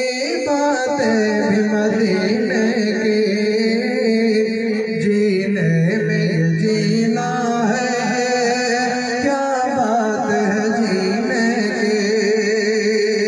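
A man singing a naat, an Urdu devotional kalam, into a microphone, drawing out long held notes with wavering, ornamented pitch.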